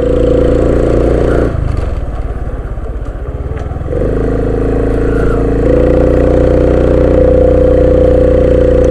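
Motorcycle engine running at a steady pitch, picked up by a helmet-mounted lapel mic. Its drone drops away for about two seconds, comes back, and a little later steps up slightly in pitch and holds there.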